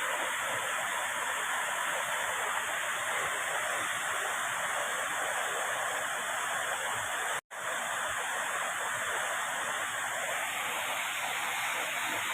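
Waterfall rushing steadily, with a sudden, very short break in the sound about seven and a half seconds in.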